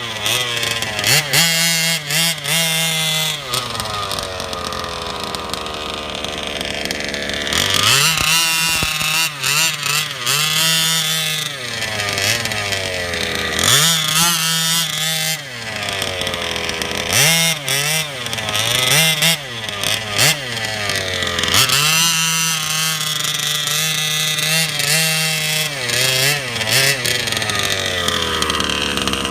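HPI Baja 5B RC car's G340 two-stroke petrol engine revving in repeated bursts of throttle, the pitch climbing and falling several times and dropping back to a lower steady run in between, on its first run after a rebuild.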